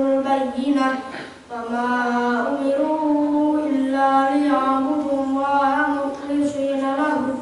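A boy reciting the Qur'an in Arabic into a microphone, in the melodic, chant-like style of tilawah, holding long steady notes with ornamented turns. He takes a brief breath about a second and a half in.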